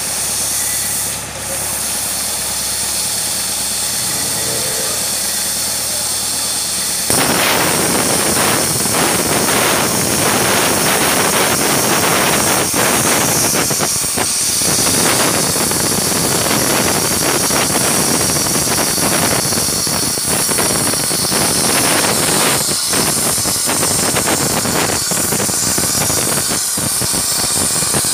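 Hand-held plasma cutting torch on steel plate: a steady high air hiss at first, then about seven seconds in the arc strikes and it cuts with a loud, steady crackling hiss.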